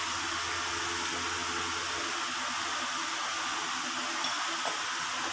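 Malpuas deep-frying in hot refined oil in a kadai, a steady sizzling hiss.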